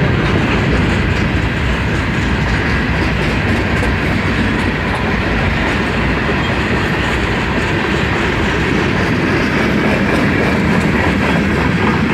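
Ferromex freight train's cars rolling past, a steady noise of steel wheels running on the rails.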